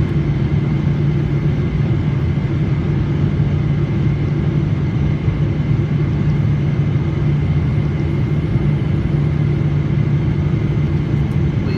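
Steady jet airliner cabin noise in flight: an even low rumble of engines and rushing air that holds at one level throughout.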